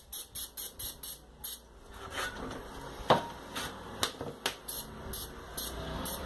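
Aerosol can of penetrating oil sprayed in short rapid puffs, about five a second, into the bolt holes of an aluminium engine case cover. In the middle the spraying pauses for a few sharp clicks and knocks of the metal cover being handled, the loudest about three seconds in.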